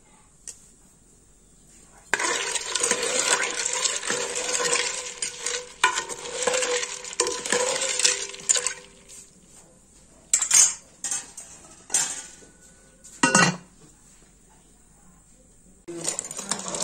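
Spoon stirring and scraping in a metal cooking pot: a quiet start, then several seconds of continuous clattering and scraping with clinks, a few separate clanks, and the stirring starting again near the end.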